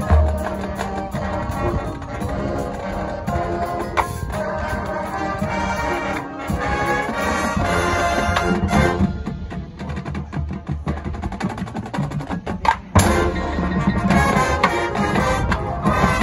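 High school marching band playing: brass over drums and the front ensemble's mallet percussion, with sharp percussive accents, the loudest about three-quarters of the way through.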